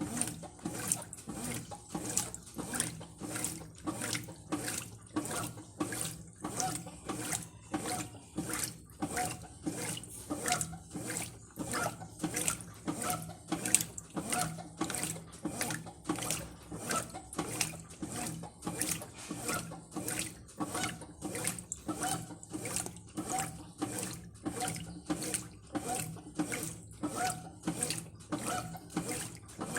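Brastemp Ative 11 kg top-load washing machine agitating a full load on its Turbo program: water and clothes slosh in even, rhythmic surges, about three every two seconds, as the eight-vane agitator swings back and forth.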